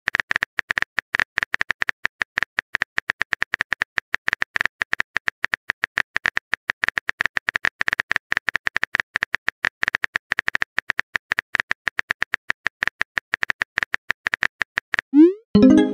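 Texting-app keyboard click sound effects, rapid clicks one per typed letter as a long message is typed out. Near the end comes a short rising sound effect as the message is sent.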